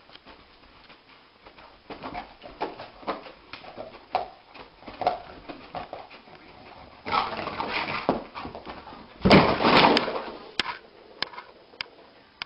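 A sleeping dog whimpering and yipping softly as it dreams, its legs paddling. It then scrabbles and thumps as it jumps up, loudest about nine seconds in, followed by a few sharp clicks.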